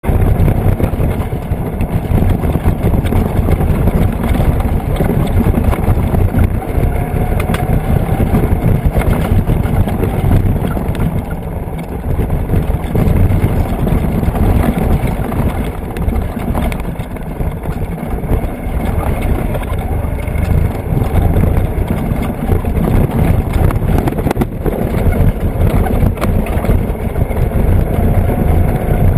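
Off-road vehicle driving along a dirt road, heard from a camera on its hood: a steady low engine and road rumble with wind on the microphone.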